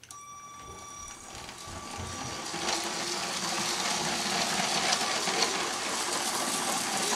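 LEGO City 60051 high-speed passenger train's Power Functions motor pulling away with a thin high whine, then the running train and its wheels on the plastic track making a steady rushing clatter that grows louder as it speeds up.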